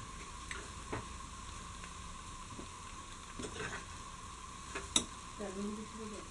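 Beef fry with coconut pieces sizzling in a frying pan while being stirred with a metal spoon, the spoon clicking against the pan a few times, loudest about five seconds in. The beef is in its last stage of frying, its water cooked off.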